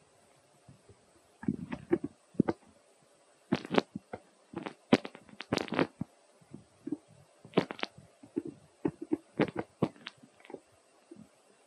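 Baby macaque suckling at its mother's nipple: irregular wet sucking and smacking clicks, coming in short clusters with pauses between.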